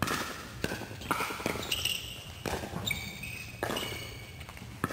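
Pickleball paddles striking a hard plastic ball during a rally: a run of sharp pops every half second to a second, echoing in a large indoor hall, with brief high squeaks of sneakers on the court between hits.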